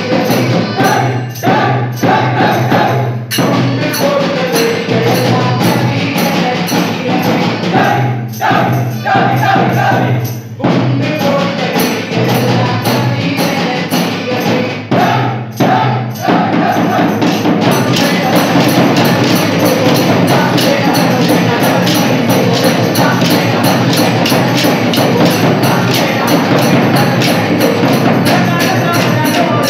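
Live folk music for a Kaliyal stick dance: a drum and voices singing, with the dancers' wooden sticks clacking together in a steady rhythm. The music drops out for a moment a few times in the first half, then about 18 seconds in the beat turns faster and denser.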